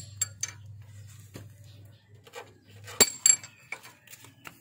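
Hammer striking a socket used as a drift to seat a new oil seal, giving sharp metallic clinks: a few light taps at first, then two loud ringing strikes about three seconds in and smaller taps after. A faint steady low hum lies under the first half.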